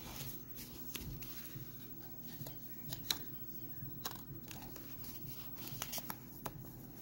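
Cotton-gloved hands handling a cardboard coin card and its presentation case: scattered light clicks and rustles of card and paper, over a steady low hum.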